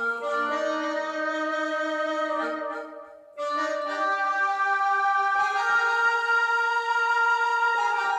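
Roland XPS-10 keyboard playing a melody on one of its Indian instrument tones: held notes with rich overtones. There is a brief pause about three seconds in, then fuller sustained notes.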